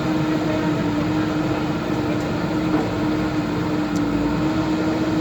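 Diesel engine of a JCB backhoe loader running steadily, a constant drone with a strong low hum that holds one pitch.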